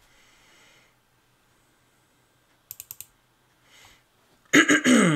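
A quick run of four clicks at the computer about three seconds in. Near the end comes the loudest sound: a pitched sound sliding steadily downward in pitch over about half a second, mixed with clicks.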